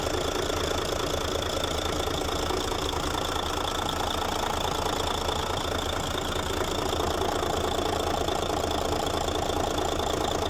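Freshly overhauled Mercedes-Benz Actros 2040 diesel truck engine idling steadily.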